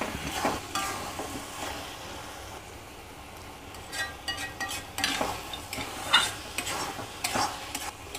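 A metal ladle stirring and scraping thick carrot halwa around a metal pan in irregular strokes, more of them in the second half, over a soft sizzle of the halwa cooking in ghee on a low flame.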